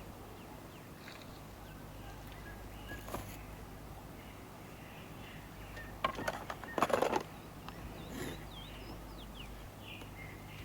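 Scattered faint chirps and short whistles of small birds over a low steady background. Two single knocks fall about three seconds in and near eight seconds. A louder cluster of knocks and clatter runs from about six to seven seconds in.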